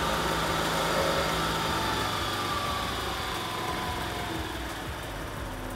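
Honda Activa scooter's single-cylinder four-stroke engine idling, its speed falling gradually from about a second in as the carburetor's idle stop screw is loosened to lower the idle.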